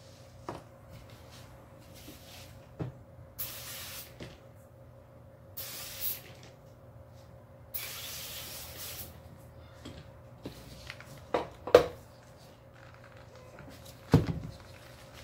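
Aerosol brake cleaner (CRC Brakleen) sprayed in three short hissing bursts into a pressure washer's water pump, the last burst the longest. Then a few sharp knocks later on.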